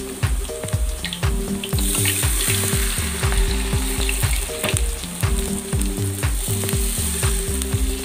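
Rempeyek batter of moringa leaves frying in hot oil in a wok: a steady sizzle with small crackles, louder from about two seconds in. Background music with a repeating low melody runs underneath.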